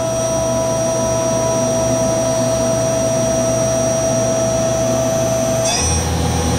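Spindle of an Okuma Howa Millac 438V CNC vertical machining center running at high speed, several thousand RPM, with a steady whine over a low hum. The whine stops a little before the end as the spindle speed is changed.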